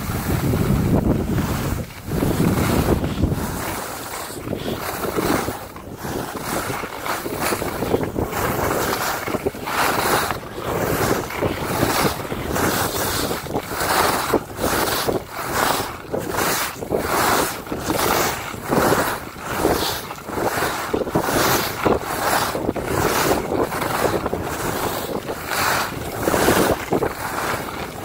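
Skis carving across packed snow in quick linked turns, a swish about once a second, with wind rushing over the microphone at speed.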